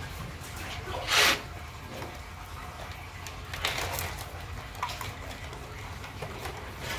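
Live southern rock lobsters being handled by gloved hands in plastic crates: short scuffs and clatters of spiny shells and legs against the plastic, the loudest about a second in and another near four seconds, over a steady low hum.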